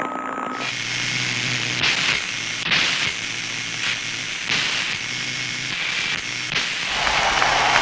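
Synthesized sound effects: a steady static-like hiss with a swoosh about once a second and a low hum beneath. Near the end the hiss thins out and a lower rumble takes over.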